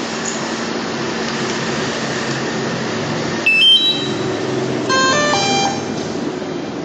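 Electronic beep chimes from a DJI Mavic 2 Zoom drone system during a post-repair test: a short rising three-note beep about three and a half seconds in, then a lower, falling melody of stepped tones about five seconds in, over a steady noisy hum.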